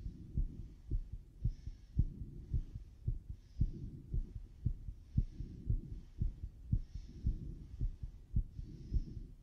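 A young athlete's heartbeat heard through a stethoscope on his chest, fast at roughly two beats a second, its rate raised by exercise just finished. Soft breath sounds come and go in between.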